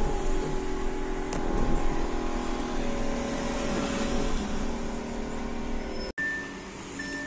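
Steady road and traffic noise heard from inside a moving electric bus at night, with the hum of passing vehicles and a sharp click about a second in. Near the end it cuts to quieter surroundings with a short high beep.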